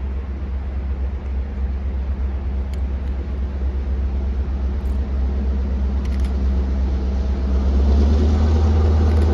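Low, steady rumble of an approaching EMD GP38-2 diesel locomotive's 16-cylinder two-stroke engine, growing louder over the last couple of seconds as it nears.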